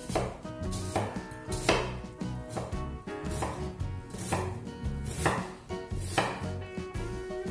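Kitchen knife cutting through an onion and striking an end-grain wooden cutting board, about one cut a second.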